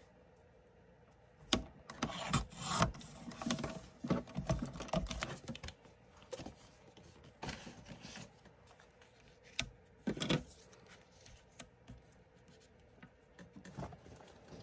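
Irregular clicks, taps and paper rustles from working cardstock on a self-healing cutting mat with a Carl Titanium paper trimmer: trimming a sentiment panel, moving the trimmer aside and setting the paper pieces down. The loudest clusters of clicks come about two seconds in and again about ten seconds in.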